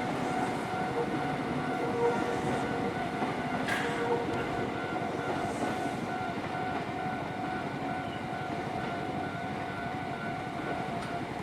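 Japanese railway level-crossing warning bell ringing steadily while a train runs through the crossing over a rumble of wheels on rail. The bell stops near the end.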